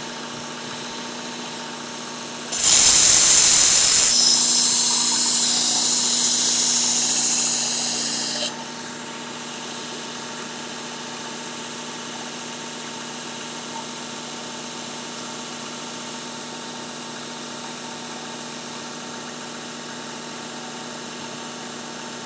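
Work Sharp Ken Onion Edition belt sharpener's motor running with a steady hum. About two and a half seconds in, a chef knife is drawn across the coarse abrasive belt for about six seconds, a loud grinding hiss that is loudest at first, weakens, then stops abruptly, leaving the motor running on its own. This is the grinding that raises a burr on the edge.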